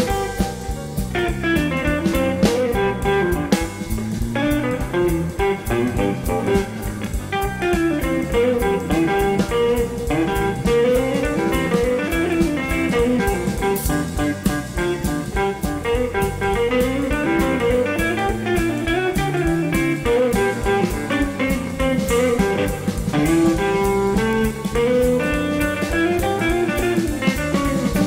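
Live blues band playing: an electric guitar carries a melodic lead line over electric bass and a drum kit.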